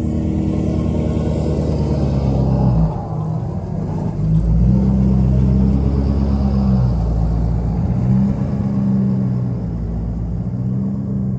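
A vehicle's engine running steadily under load as it drives between bale bundles, its pitch stepping up and down a few times.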